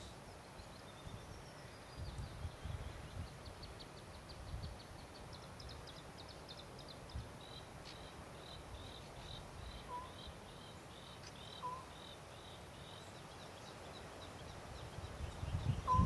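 A small songbird singing a long, thin, high-pitched song: quick notes that start higher and settle into a steady string of repeated notes about three a second. Two short, lower calls from another bird come in the second half. Faint wind rumble on the microphone swells near the end.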